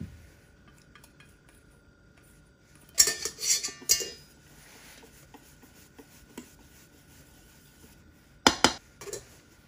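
Wire balloon whisk rattling and clinking against the sides of a stainless steel mixing bowl while whisking liquid cheesecake batter: a short clattering burst about three seconds in, and two sharp metal clanks near the end.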